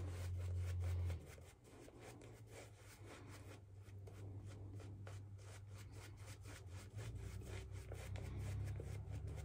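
Synthetic-knot shaving brush rubbing shaving-soap lather over a stubbled face in quick repeated strokes, a faint brushing. Under it runs a low hum that drops away about a second in.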